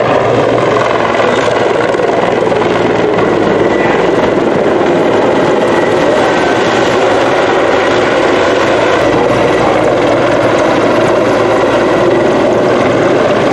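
Mi-24V (Mi-35) attack helicopter flying low past, its main rotor and twin turboshaft engines running loud and steady, with a faint high turbine whine over the rotor noise.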